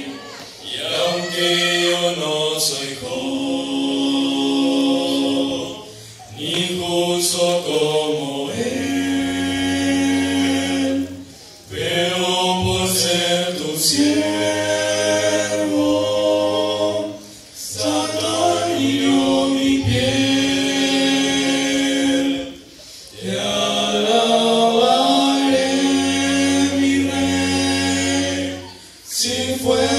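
Male vocal quartet singing a cappella in harmony into handheld microphones, with long held chords in phrases broken by short pauses about every five or six seconds.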